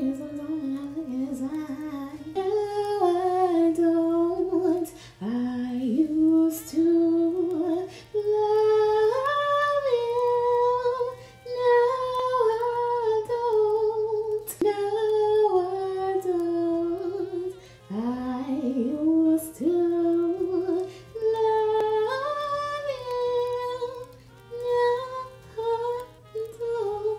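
A woman singing a slow melody without accompaniment, long held notes with vibrato in phrases broken by short pauses.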